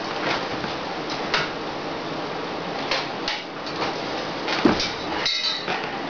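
Scattered small clicks and knocks of objects being handled, over a steady hiss, with a short ringing clink a little after five seconds in.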